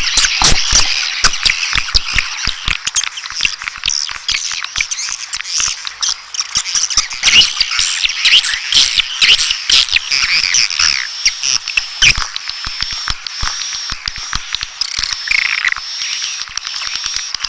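Swiftlet calling sound for attracting swiftlets to a nesting house: a dense chorus of many swiftlets twittering, the high chirps overlapping continuously and mixed with many sharp clicks.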